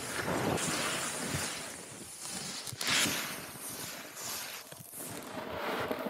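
Burton Floater snowboard carving on groomed snow: the base and edges hiss and scrape through the turns in swells, loudest in a turn about three seconds in.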